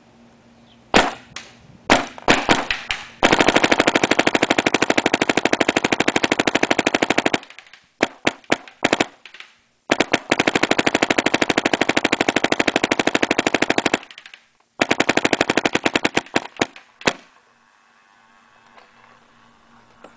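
Proto PMR electronic paintball marker firing on PSP ramping mode at about 13 balls per second. A few single shots come first, then three long strings of rapid, evenly spaced shots lasting about four, four and one and a half seconds, with scattered single shots between them.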